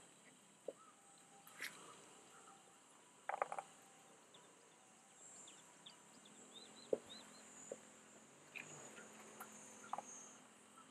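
Faint summer field ambience: a steady high insect drone with short bird chirps in the middle, and a few scattered taps and clicks, the loudest a quick cluster about three seconds in.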